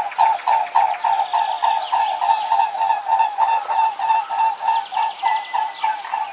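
Swans giving a rapid, even run of pulsed notes, about four a second, with fainter higher bird chirps over it.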